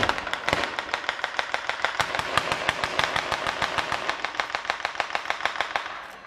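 A string of firecrackers going off in a rapid, dense crackle of bangs, dying away about six seconds in.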